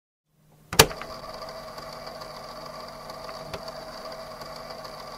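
Silence, then a sudden loud hit under a second in. A steady drone of several held tones follows, with a few scattered clicks, as in an edited-in transition sound effect.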